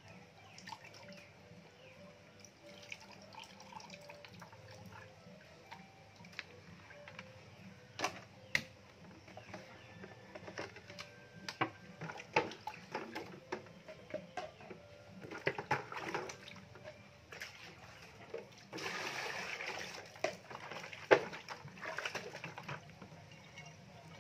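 Water sloshing and splashing in a plastic bucket as hands stir and swish through it, mixing a disinfectant solution, with scattered drips and small knocks and louder bursts of splashing in the second half.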